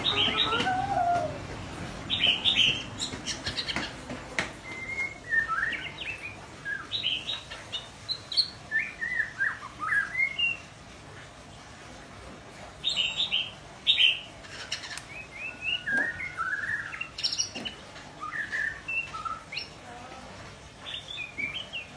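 Young white-rumped shama practising its song: a string of short chirped and whistled phrases that slide up and down in pitch, with a gap of about two seconds near the middle.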